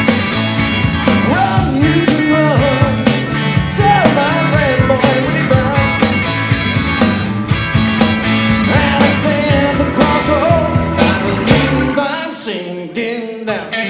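Live rock band playing electric guitars, bass and drums, with a bending electric-guitar lead line over the top. About twelve seconds in, the bass and drums drop out, leaving the guitars.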